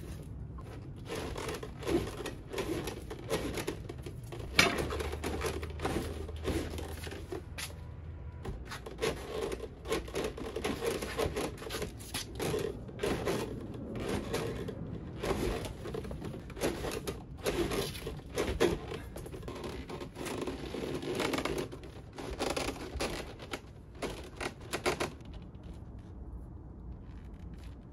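Handling noise from heavy electrical cable being pulled and worked into place: irregular scraping, rustling and small clicks and knocks, which stop about three seconds before the end.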